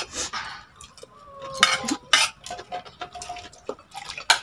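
Spoon and fork clinking and scraping on a plate, with a few sharp clinks that leave a short metallic ring. Near the end, water is poured from a metal pitcher into a plastic cup.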